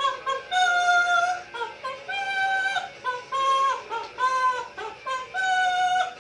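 Amazon parrot singing: four long held notes of about a second each, with short quick notes between them.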